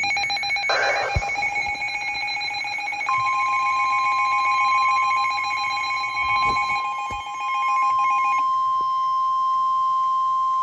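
Emergency Alert System attention tones between two weather warnings. A rapidly pulsing, buzzy alert tone is joined about three seconds in by a single steady pitch, the weather-radio warning alarm. The pulsing tone stops about eight seconds in, and the steady alarm continues alone.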